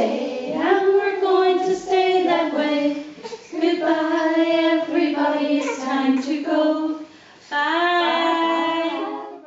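Women's voices singing a nursery song together without instruments, in long held notes, with a short pause about seven seconds in before the next line starts.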